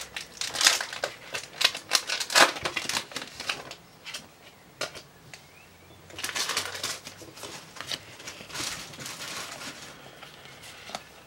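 Crinkling and tearing of a foil booster-pack wrapper as a Pokémon card pack is opened, in irregular bursts that are busiest in the first few seconds, then the rustle of the new cards being handled.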